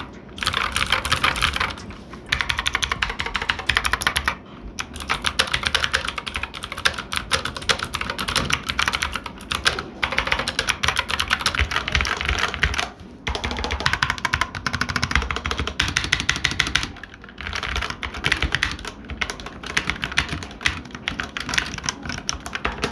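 Typing sound test on a Zifriend ZA981 hot-swappable mechanical keyboard with its 3-pin mechanical switches: rapid runs of key clacks broken by short pauses about 2, 4.5, 13 and 17 seconds in.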